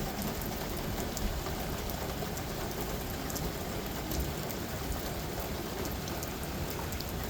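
Heavy rain falling steadily, the drops hitting a car's body, with a few sharper single drop ticks now and then.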